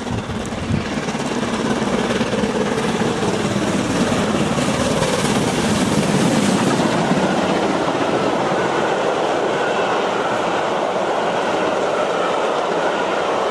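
Steam locomotive and its passenger coaches passing close at speed: a steady rushing rumble with wheel clatter over the rails.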